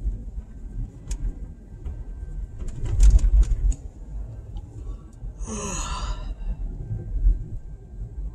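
Low rumble of a vehicle driving slowly over a snow-covered road, heard from inside the cabin, with a few knocks and a jolt about three seconds in. About halfway through comes a short, wavering vocal sound from a person, like a sigh.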